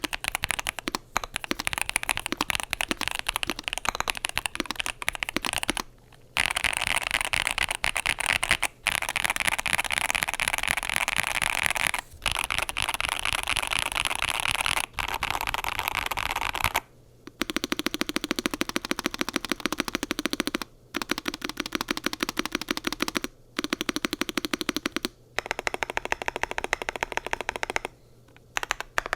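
Fast typing on a Yunzii AL65 mechanical keyboard with Gateron Zero linear switches, PBT double-shot keycaps and an aluminium case. It is a dense stream of clacking keystrokes in runs separated by short pauses, fastest and densest from about six to seventeen seconds in.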